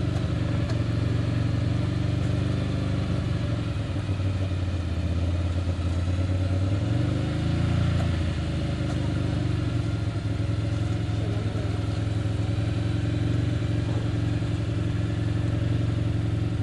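ATV engines running, one quad revving up briefly about halfway through as it climbs out of a muddy ditch.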